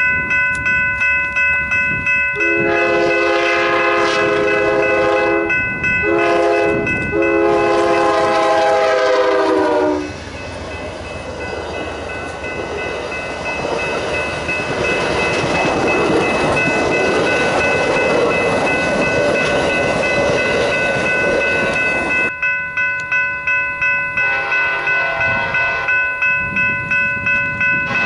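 A crossing bell rings, then an approaching Amtrak locomotive's horn sounds a long blast, a short one and another long one, its pitch dropping slightly at the end as it passes. The Superliner bilevel cars then rumble by for about twelve seconds. Near the end the bell rings again and a fainter train horn sounds.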